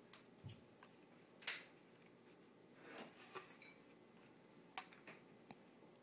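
Faint, scattered taps and clicks of a cat's paw swiping at a phone held close to the microphone. The sharpest tap comes about a second and a half in, a quick run of taps around three seconds, and two more near the end.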